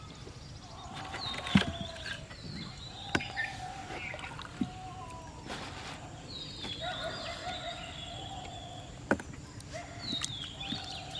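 Birds calling over and over outdoors, with a few sharp knocks, the loudest about one and a half seconds in.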